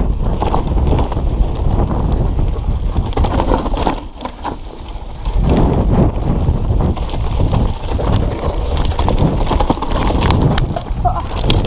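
Mountain bike descending a dirt forest trail at speed: wind buffeting the microphone, tyres rumbling over the dirt, and the bike rattling and knocking over bumps. It quietens briefly about four seconds in.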